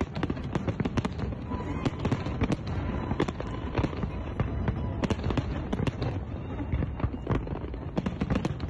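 New Year's fireworks going off in quick succession: an irregular stream of sharp bangs and crackles, several a second.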